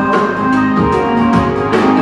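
Instrumental passage of a pop ballad played by a live band, keyboard chords over bass and drums, between sung lines.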